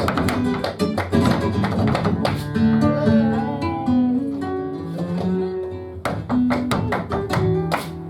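Flamenco guitar playing a guajira, with plucked melodic runs and clusters of sharp strummed strikes.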